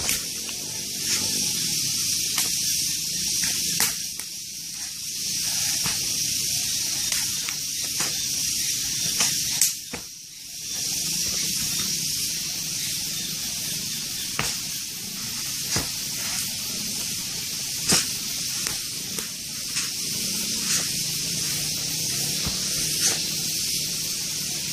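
Scattered sharp slaps and snaps from a pencak silat practitioner's fast strikes and stances, over a steady high hiss.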